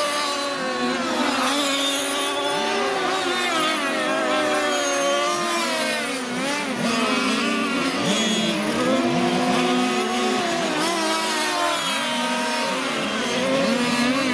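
Several 1/5-scale petrol radio-controlled racing cars' small two-stroke engines buzzing at once, their overlapping pitches rising and falling as each car accelerates and backs off.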